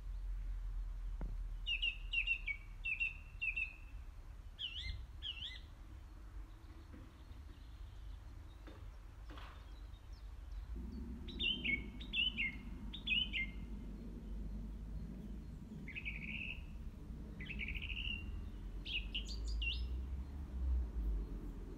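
A small songbird singing phrases of quick, downward-sliding chirps, several phrases with pauses between them, over a low steady background rumble.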